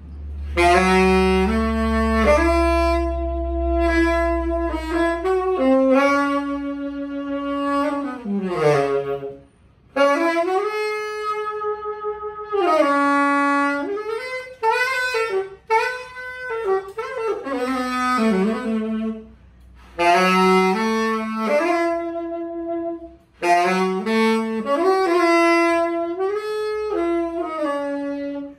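Purple-logo Yamaha YTS-61 tenor saxophone playing a melody in phrases, with three short breaks for breath.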